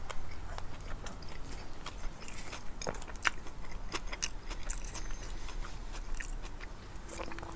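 Close-miked chewing of a mouthful of Subway tuna sub on soft, untoasted Italian white bread, with many small mouth clicks and crunches scattered throughout.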